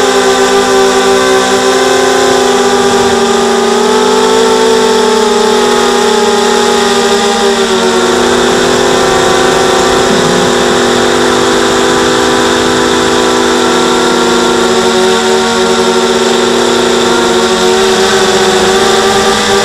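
XHover 230 mini quadcopter's motors and propellers whining as it flies, heard loud and close through its onboard camera. The whine's pitch sags slightly in the middle and climbs again near the end as the throttle changes.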